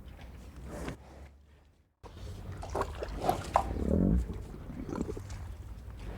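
Cow chewing and tearing grass close to the microphone: repeated short crunches and clicks, broken by a brief silence about a second in. Around four seconds in there is a short low pitched sound from the cow, the loudest part.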